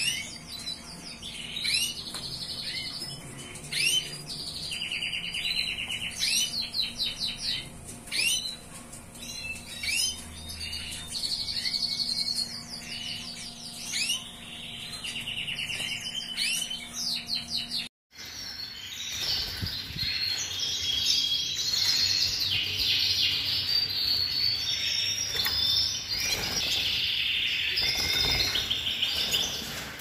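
Domestic canaries singing, several birds together. The song is a string of fast trills and rising whistled notes. After a brief break about halfway through, the song becomes denser and busier.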